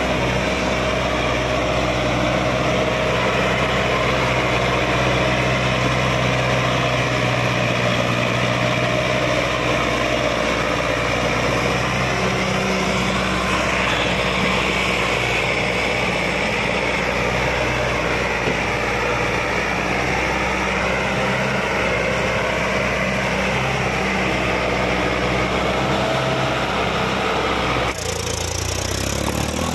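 Sonalika DI 750 tractor's diesel engine running under heavy load as it pulls a fully loaded trolley up a slope, its pitch steady at first and then wavering. Near the end it cuts to another tractor's engine, an Eicher 333, also hauling a loaded trolley.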